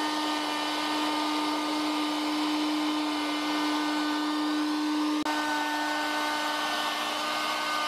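Ryobi 2 HP variable-speed plunge router running at a steady high speed while it rounds over the edge of a wooden board: a constant high motor whine over a hiss of cutting. About five seconds in there is a faint click and the whine's upper tones shift slightly.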